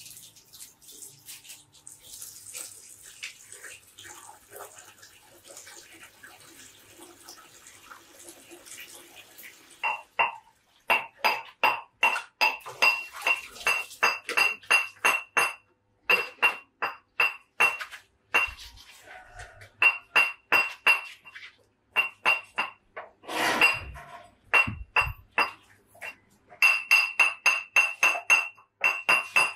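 Tap water running and splashing faintly at first. From about ten seconds in comes a fast run of knife strokes, about three to four a second, each with a metallic clink, broken by short pauses.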